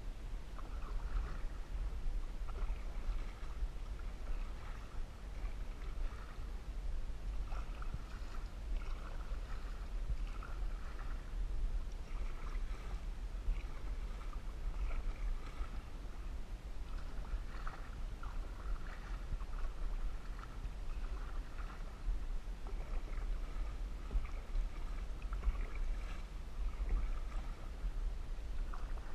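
Canoe paddle strokes in lake water: splashing and dripping that recur unevenly every second or two, over a steady low rumble.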